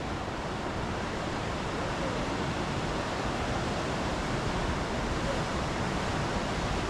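Steady rushing wash of ocean surf mixed with wind, growing slightly louder.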